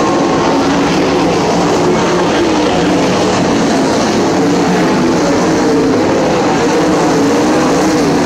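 Several winged sprintcars' V8 engines running flat out, loud and continuous, their overlapping pitches wavering up and down as the cars circle the dirt oval and pass.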